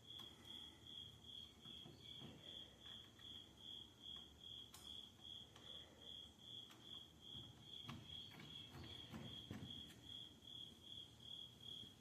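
A cricket chirping steadily, about three chirps a second, over faint quiet. A few faint knocks come in the second half.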